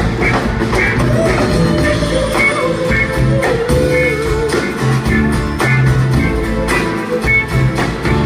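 A rock band playing, with a steady drum beat and a held, wavering lead note in the middle.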